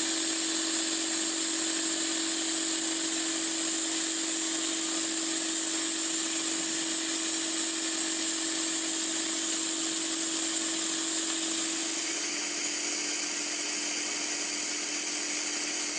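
Auto-prime pump running steadily at speed while drawing vacuum through a test plate held over its suction fitting: a steady hum under a strong hiss. The sound shifts slightly about twelve seconds in.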